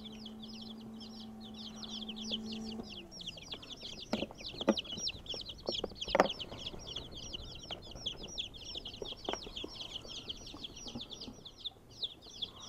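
A brood of baby chicks peeping constantly, many high, falling chirps a second. A low hum, the egg incubator's fan, winds down and stops about three seconds in, and after it come a few knocks of the plastic incubator and waterer being handled in the tote.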